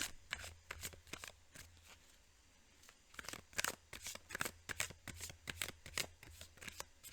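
Deck of oracle cards being shuffled by hand: quick riffling rustles and card snaps, with a lull of about a second and a half before the shuffling picks up again about three seconds in.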